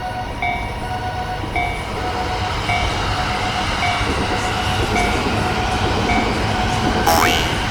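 Japanese level-crossing warning bell ringing steadily in its alternating two-tone pattern, about two strikes a second, while the noise of a passing train builds from about two seconds in. A brief sliding tone sounds near the end.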